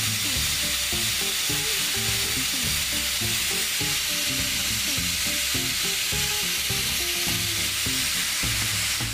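Angle grinder with a thin cutting disc slicing through cast brass, cutting the castings off the casting tree: a steady, even hissing grind. Background music plays underneath.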